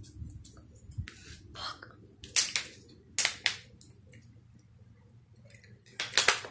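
A handful of sharp clicks and knocks over a faint low hum: one about two and a half seconds in, two more about a second later, and a quick cluster near the end.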